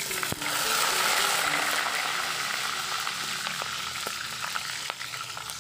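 Hot oil in an aluminium wok sizzling loudly as chopped garlic and chillies are tipped in and fried, with a slotted metal spatula stirring and ticking against the pan. The sizzle flares up just after the start and dies down near the end.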